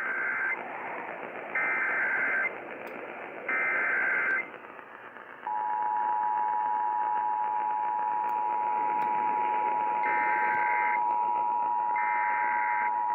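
Emergency Alert System header: three short bursts of warbling digital data, then the EAS two-tone attention signal, a steady harsh dual tone that starts about five and a half seconds in and holds. Further data bursts sound over the tone near the end. All of it comes through a hissy, muffled radio receiver.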